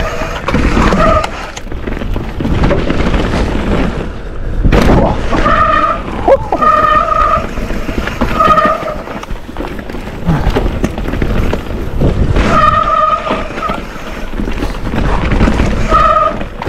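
Mountain bike disc brakes squealing in short bursts, about six times, at the same steady pitch each time the rider brakes, over the rattle and rumble of tyres and frame on a wet, muddy dirt trail. There is one hard jolt of the bike about five seconds in.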